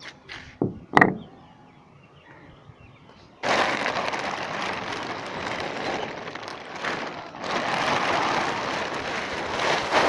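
Plastic tarpaulin being pulled off a heap of paddy, crackling and rustling loudly from about three seconds in, with a brief lull partway through. A couple of sharp knocks come in the first second.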